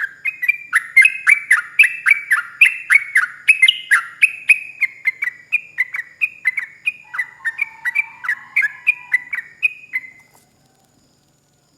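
Sooty-headed bulbul (trucuk) singing a long rapid 'ropel' run of short, loud, falling whistled notes, about four a second, with a lower-pitched voice joining briefly near the end. The song stops abruptly about ten seconds in.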